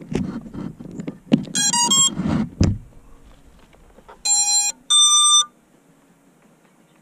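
Handling knocks and rattles on a small FPV quadcopter, with a quick run of stepped electronic beeps played through its motors. Then come two longer beeps, the second one higher: the ESC power-up tones that sound when a battery is connected.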